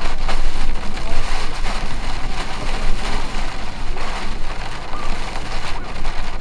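Heavy rain pelting a vehicle, a dense steady hiss over a low road rumble.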